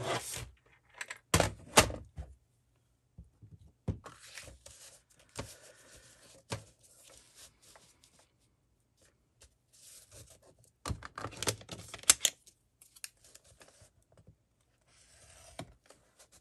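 Paper handled on a craft table: rustling and sliding of paper strips, broken by sharp taps and clicks, with the loudest clusters about a second and a half in and again near twelve seconds.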